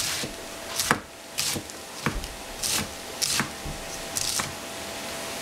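Kitchen knife chopping vegetables on a wooden cutting board: irregular sharp chops about every half second to a second, over a faint steady hum.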